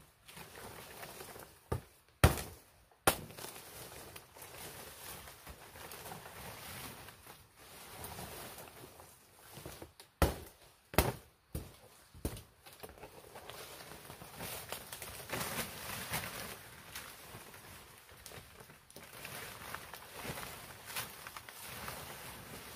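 Machete chopping through palm frond stems: three sharp strikes about two seconds in and four more around ten to twelve seconds in. Between and after the strikes, large fan palm leaves rustle and swish as they are handled and dragged through undergrowth.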